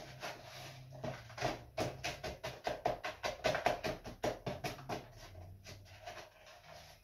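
Rapid tapping on a plastic funnel sitting in a glass beer bottle's neck, about five taps a second for several seconds, knocking clumped malt and sugar loose where it is stuck in the funnel.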